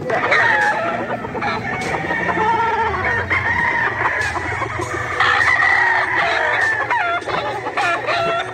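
Several gamefowl roosters crowing and clucking, their calls overlapping throughout.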